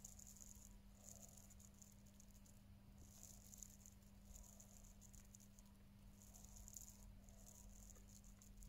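Near silence: a faint steady hum with faint, short rattling hisses coming about once a second.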